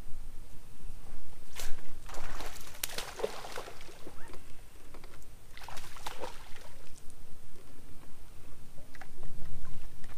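Water sloshing and splashing beside a bass boat: a sharp splash about one and a half seconds in, a longer run of sloshing over the next two seconds, and another burst around six seconds in, over a steady low rumble.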